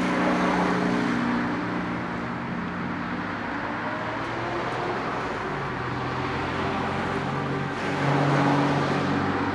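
Small gasoline engine left running, a steady engine tone that drops a little in pitch about halfway through and swells briefly near the end.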